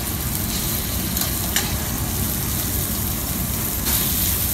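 Chicken pieces searing in hot oil in a steel paella pan, a steady sizzle over a low rumble, with two short metallic clicks of tongs against the pan about a second and a half in.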